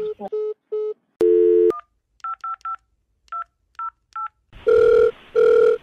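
Phone keypad tones as a number is dialled: about ten short two-note beeps at uneven spacing. Near the end comes a double-burst ringing tone as the call rings through.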